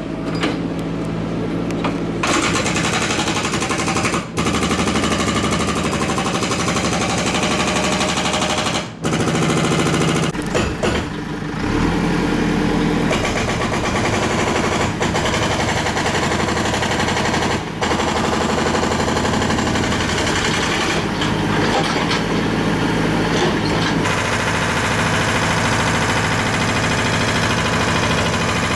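Hilti power tool hammering in long runs of rapid blows, stopping for a moment a few times, over a steady low hum.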